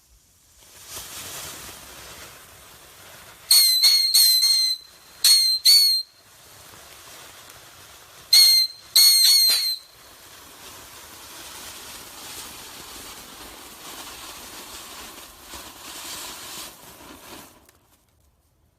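Two Dominator Killer Bee firework fountains spraying with a steady hiss, broken in the first half by four loud, shrill whistling bursts. The hiss begins about a second in and dies out near the end.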